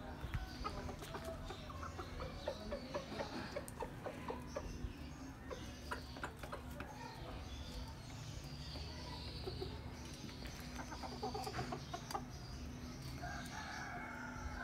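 Domestic chickens clucking: short, repeated clucks in clusters, busiest in the first few seconds and again a little after the middle.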